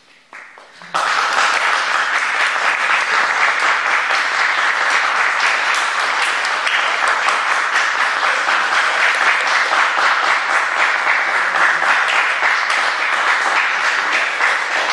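Audience applauding: the clapping breaks out about a second in and keeps up, loud and steady.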